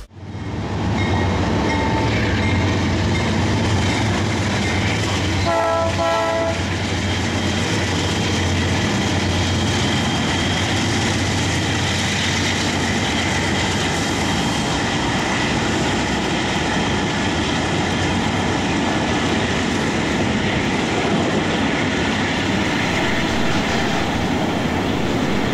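Diesel-hauled intermodal freight train passing, the locomotives' engine rumble giving way to the steady rolling and wheel-on-rail noise of double-stack container cars. A short train horn blast sounds about six seconds in.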